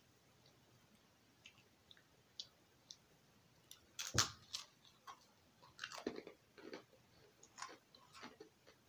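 A hard sourdough pretzel ring bitten with one sharp crack about four seconds in, then crunched and chewed for several seconds.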